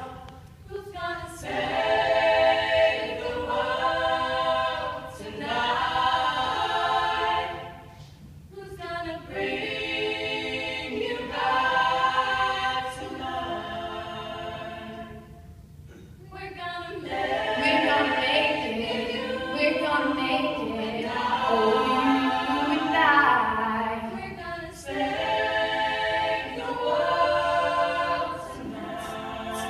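A cappella choir singing in long phrases, with brief breaks about every eight seconds.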